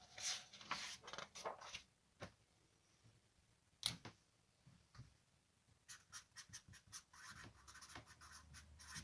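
Faint handling of paper sheets on a wooden desk, a single tick about four seconds in, then a felt-tip marker scratching across paper in quick short strokes as a word is written over the last three seconds.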